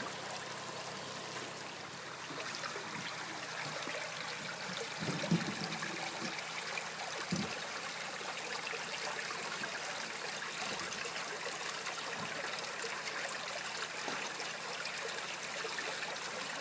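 Shallow creek water running steadily over rocks, with a couple of brief soft thumps about five and seven seconds in.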